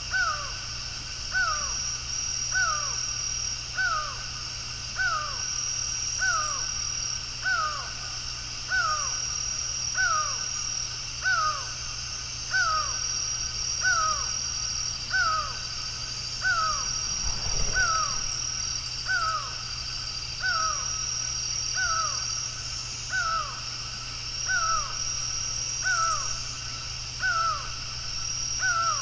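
Laughing falcon calling: a single falling note repeated steadily, about once every 1.2 seconds, over a steady high-pitched buzz.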